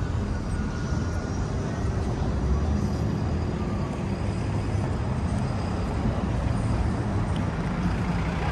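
City street traffic: a steady low rumble of vehicle engines and road noise.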